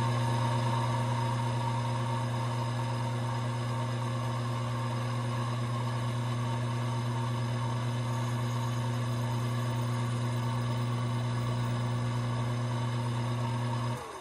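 Small lathe's motor running at a steady speed with an even hum, spinning a brass rifle case for neck turning. It switches off and spins down near the end.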